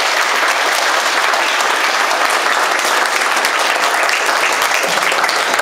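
Audience applauding: a room full of people clapping steadily and loudly.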